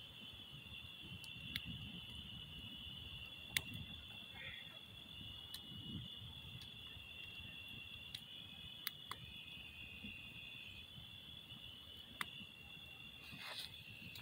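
Wood fire in a steel fire ring crackling, with sharp pops every second or two, the loudest about three and a half seconds in. Behind it runs a steady high trill of insects such as crickets.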